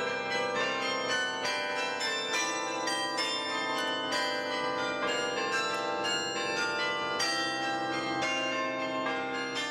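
Tower carillon bells playing a quick run of notes, each struck note ringing on over the next.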